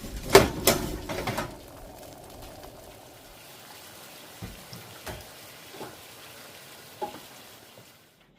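Dishes and utensils clattering: several sharp clinks and knocks in the first second and a half, then only a few faint knocks.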